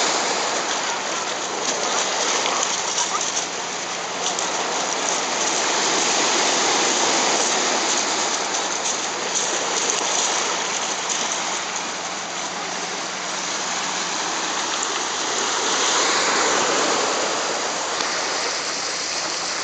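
A small waterfall's water falling and splashing in a steady rush, swelling a little at times.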